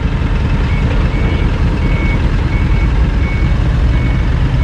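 Toyota forklift backing away, its reverse alarm giving short, evenly spaced high beeps over the steady low running of its engine.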